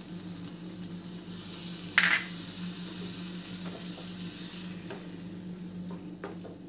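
Tomatoes sizzling in a non-stick pan as a little water is poured in, with one sudden loud burst of noise about two seconds in. From about five seconds a wooden spoon stirs, with short taps and scrapes against the pan.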